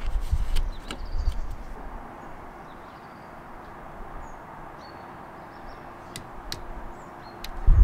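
Hands handling a paper protractor card and a torque wrench on a screw in a vise-clamped plastic test piece: a handful of sharp small clicks and taps, with a low rumble in the first two seconds and a few faint high bird chirps.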